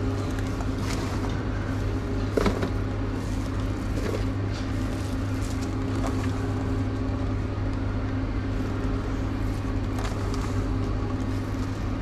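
Steady low mechanical hum with a constant drone, over faint rustling of vegetables being laid onto a sandwich by gloved hands, with a light knock about two and a half seconds in.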